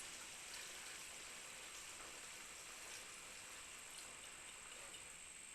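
Faint, steady trickle of old gasoline-oil mix pouring through a filter funnel into a gallon jug.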